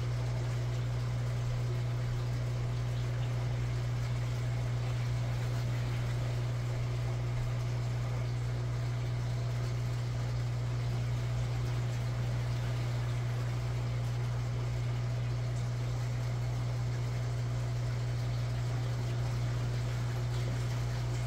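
Aquarium aeration running: a steady low hum of an air pump with the bubbling hiss of air streams rising through the water.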